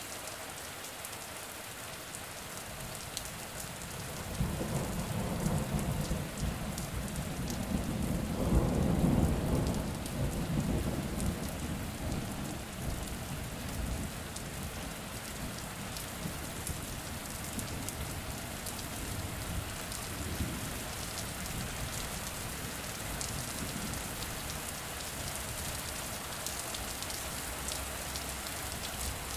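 Steady rain falling, with a single long roll of thunder that rumbles in about four seconds in, is loudest a few seconds later, and fades away over several seconds while the rain carries on.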